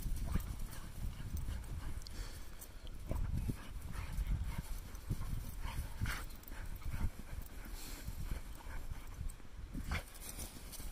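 A dog plowing and bounding through deep snow: irregular crunches and scuffs as its paws and muzzle break the snow, over a steady low rumble.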